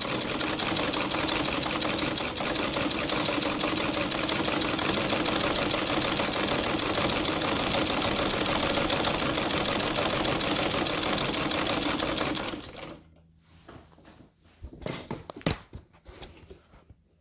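Domestic treadle sewing machine running at a steady pace with a fast, even clatter of stitching, stopping about twelve seconds in. A few scattered light clicks and knocks follow.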